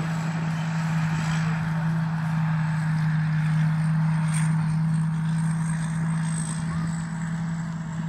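Rice combine harvester running steadily: a constant engine drone with a faint high whine above it.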